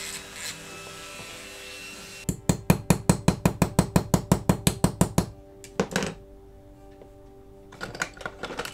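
Rapid light hammer taps on a small metal diecast part, about seven sharp strikes a second for some three seconds, followed by a few more short bursts of taps, with background music throughout.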